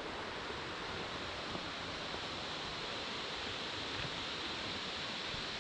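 Steady rush of falling water from a waterfall: an even, unbroken hiss.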